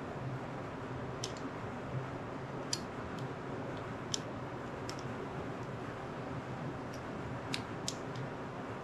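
Small steel transmission parts, gears, synchro pieces and a little spring, clicking and tapping against each other, about nine scattered sharp clicks as the gear assembly is handled and fitted by hand. A steady low hum runs underneath.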